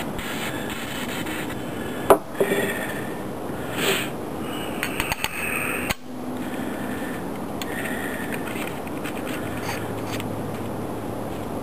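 Gloved hands handling and reassembling a pistol suppressor's metal tube and end cap: scraping and rubbing, with one sharp click about two seconds in and a cluster of small clicks around five seconds, over a steady hiss.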